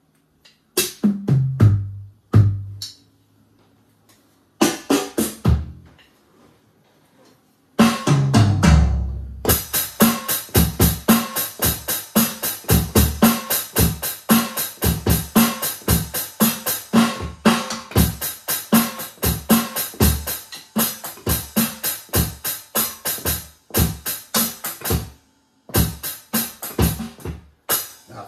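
Electronic drum kit being played: a few scattered hits, some low drums whose pitch drops after each strike, then from about eight seconds a fast, steady run of drum hits, broken by a short pause near the end.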